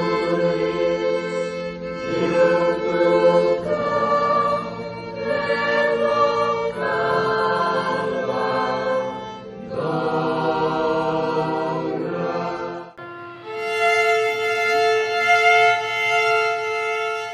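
A choir sings sacred choral music in slow, sustained chords that change every second or two. About thirteen seconds in the music breaks off abruptly and a single long held chord follows.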